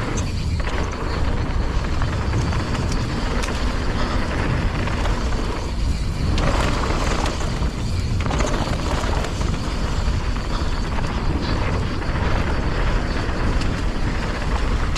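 Wind noise buffeting an action camera's microphone during a mountain-bike descent, a steady loud rumble and rush, with tyre noise and scattered clicks and rattles from the bike over the trail.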